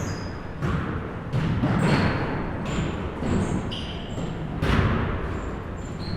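Basketballs bouncing on a gym floor in irregular thuds, with short high squeaks in between.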